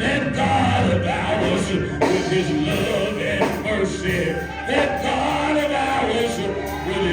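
Live music with a voice singing over the instruments.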